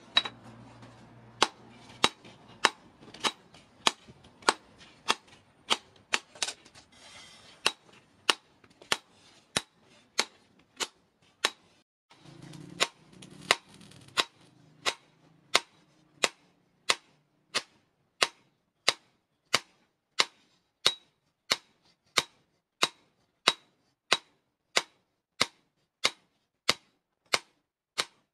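Hand hammer striking a red-hot steel rebar blade on a post anvil: a steady run of sharp, evenly spaced blows, a little under two a second, as the hot blade is forged to shape.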